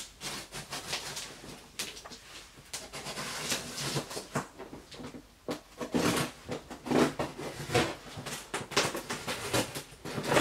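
Packing tape on a cardboard shipping box being slit and torn off by hand: irregular scratching, crinkling and tearing, with the cardboard rubbing and knocking, busier in the second half.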